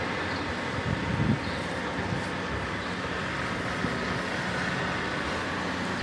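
Steady, even machine hum, like a motor running, with a low drone under a wider noise and a brief knock about a second in.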